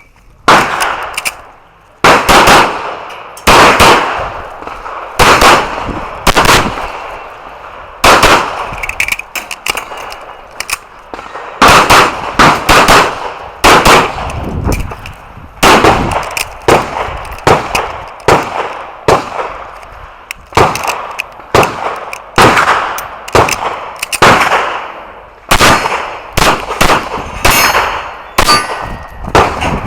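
Handgun shots fired in quick pairs and short strings with brief pauses between, each shot echoing. Hits on steel targets ring out, with a few clear metallic rings near the end.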